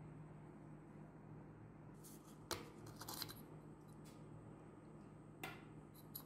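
A few sharp little clicks and taps of a headlight bulb and plastic reflector housing being handled: one click about two and a half seconds in, a short cluster around three seconds, and another as the bulb is pushed into its socket near the end, over a faint low hum.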